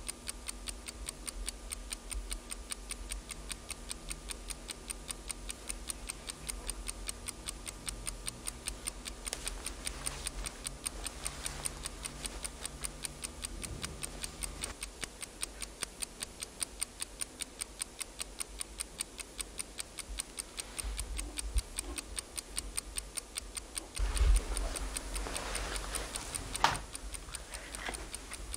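Bedside clock ticking steadily, about two ticks a second. Near the end there is rustling with a couple of sharper knocks.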